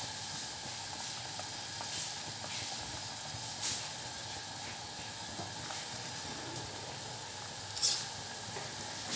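Stainless steel pot of broth at a rolling boil on a gas stove: a steady bubbling hiss. Two brief clicks, the second near the end and louder.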